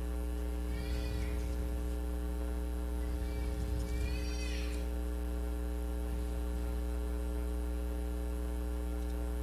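Steady electrical mains hum in the sound system, a low drone with a ladder of higher overtones. Two faint, short, high sounds rise and fall over it, about one second and about four seconds in.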